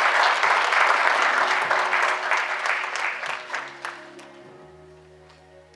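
Congregation applauding and clapping, fading out after about four seconds, as soft sustained instrumental chords come in underneath.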